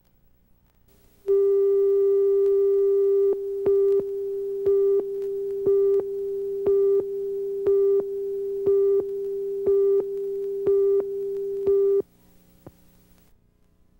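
Line-up test tone on a TV station's videotape leader with its countdown: a single steady tone comes on about a second in, then pulses about once a second in step with the countdown clock, and cuts off suddenly near the end.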